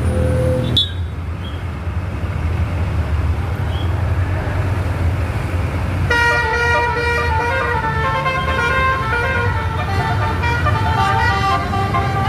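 Bus engine running with a low rumble; about six seconds in a telolet horn starts, several air-horn tones switching pitch in a quick tune over the engine.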